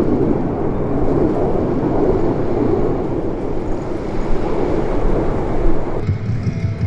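A formation of jet aircraft flying overhead: a steady roar of engine noise that cuts off about six seconds in, where rock music takes over.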